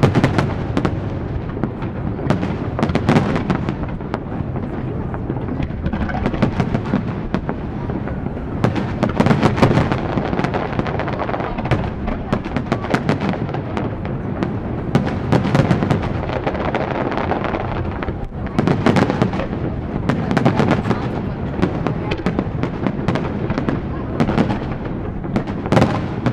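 Aerial fireworks bursting in a dense, continuous barrage: many overlapping bangs and crackles with no break, heavier in several spells.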